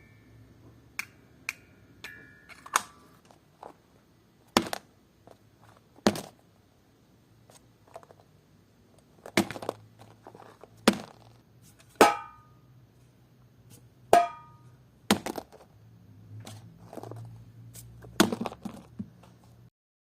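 Homemade foley sound effects: an irregular string of sharp knocks, clicks and taps, two of them with a short metallic ring, over a faint low hum.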